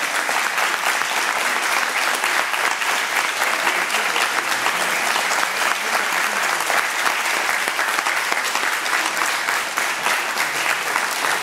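Audience applauding steadily: a dense, even stream of many hands clapping.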